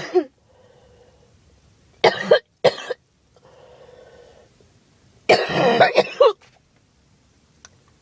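A girl coughing in bouts. A cough comes right at the start, two harsh coughs follow about two seconds in, and a longer run of coughs comes about five seconds in.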